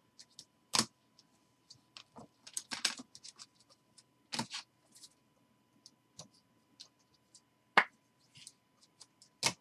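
Trading cards and rigid plastic top loaders being handled: scattered light clicks, taps and scrapes of plastic and card, with a few sharper knocks.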